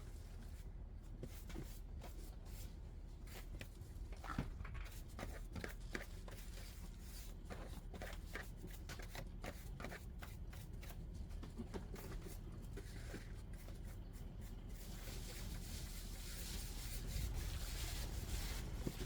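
Rustling, scraping and scattered light knocks of things being handled and swept while a van's interior is cleaned out, over a steady low rumble.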